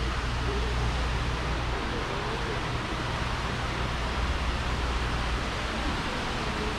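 Steady rushing background noise of a large, busy store's interior, with a low hum that fades about four seconds in and faint distant voices.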